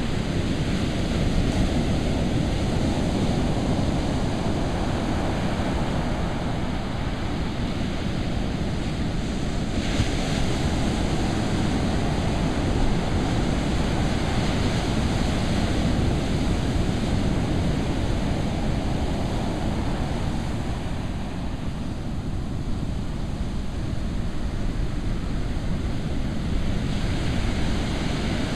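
Ocean surf breaking and washing up a sandy beach: a steady rushing of several lines of waves, with no single crash standing out.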